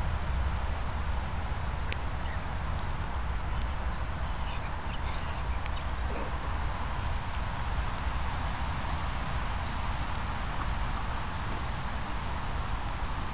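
Steady outdoor wind noise with a low rumble. A songbird sings short runs of quick, high, falling notes from about two seconds in until near the end.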